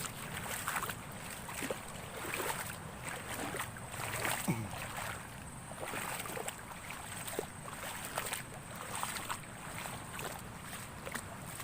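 Steady rush of big storm waves and wind, with scattered small splashes and crackles through it.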